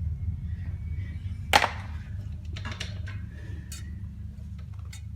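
Small metal parts and hand tools clicking and clinking: one sharp click about one and a half seconds in, then a few lighter ticks, over a steady low hum.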